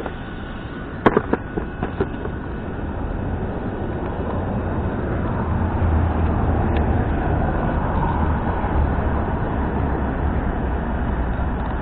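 Arrma Kraton RC monster truck driving off, its electric drivetrain and tyres making a steady rumble that builds about three seconds in, after a few sharp clicks about a second in.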